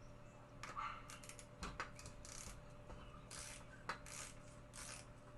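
Hex-bit wrench working the 5 mm pinch bolts on a mountain bike crank arm loose: faint metal clicks and short scraping rasps, several of them at uneven intervals.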